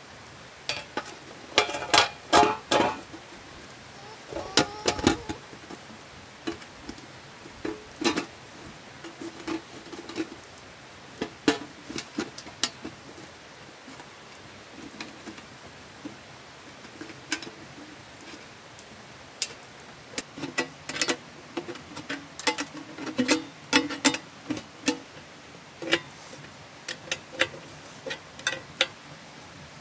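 Irregular sharp metallic clicks and clanks, some with a short ringing tone, as a sheet-metal end cover is handled and fitted onto the steel housing of a homemade generator. The densest clusters of knocks come about two seconds in, near five seconds, and again past twenty seconds.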